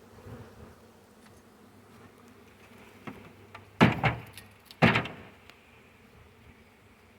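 Honey bee swarm buzzing as a steady hum, broken by two sharp knocks about a second apart in the middle.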